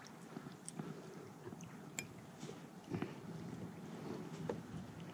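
Faint water lapping against a plastic kayak hull, with scattered light clicks and taps.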